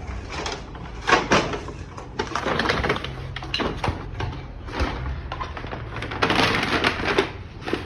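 Crinkling, rustling handling noise in irregular bursts as something is pushed inside a container.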